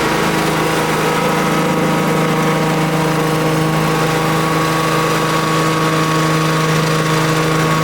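The 16 hp petrol engine of a Bartech branch shredder running steadily at a constant speed.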